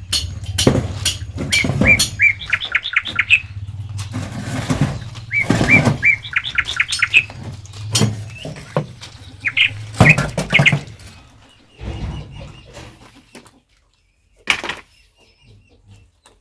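A bird chirping in three quick runs of short, high notes, each run a second or two long and a few seconds apart. Under it are a low rumble and a few knocks, which die away after about eleven seconds.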